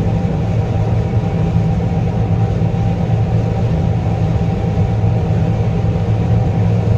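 Combine harvester running steadily while harvesting corn: a continuous low engine drone with a thin steady whine above it.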